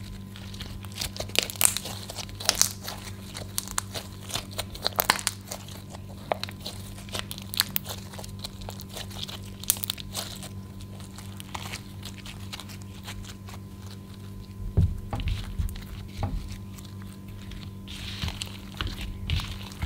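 Hands squeezing and kneading glitter slime: a stream of sharp wet pops and crackles as air pockets in the slime burst, with a few duller squelches about three-quarters of the way through. A steady low hum runs underneath.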